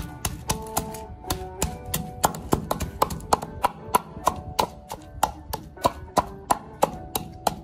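Wooden pestle pounding chilies, garlic, galangal and kaffir lime leaves in a wooden mortar, about three to four dull strikes a second, to make a spice paste. A plucked-string tune plays in the background.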